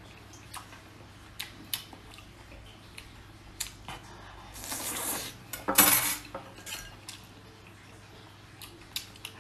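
Light clicks and clinks of a metal skewer against the bowl and its rack while skewered oysters are eaten off it, with one louder, longer burst of noise about six seconds in.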